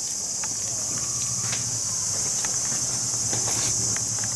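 Cicadas droning steadily at a high pitch, with a few faint ticks scattered over the top.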